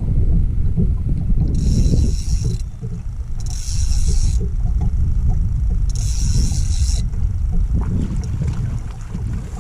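Spinning reel whirring in three bursts of about a second each as a hooked catfish is fought on a bent rod, over a steady low rumble of wind on the microphone.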